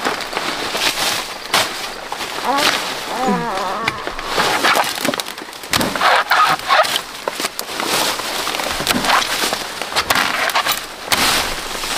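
Machete chopping dry wood: a string of irregular sharp chops with cracking and splintering.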